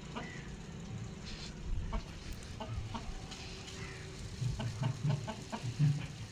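Aseel chickens clucking softly in short, scattered notes, with a few low knocks in the second half.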